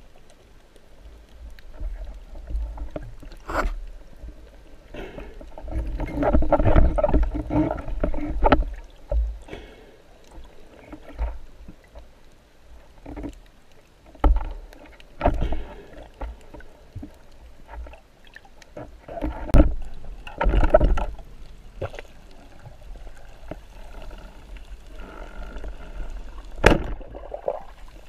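Muffled underwater sound through a waterproof camera housing: irregular swells of water noise and movement, with a few sharp knocks.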